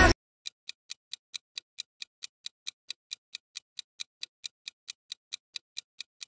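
Clock-style ticking sound effect of a quiz countdown timer, a steady four to five ticks a second, counting down the answer time. A pop song cuts off at the very start.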